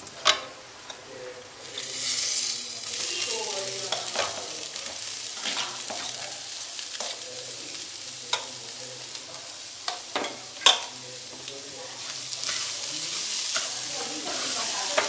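Riced cauliflower going into a pan of hot tadka and being stirred: a steady frying sizzle that swells about two seconds in, with scattered sharp clinks of spoon and spatula against the pan and plate, the loudest a little past the middle.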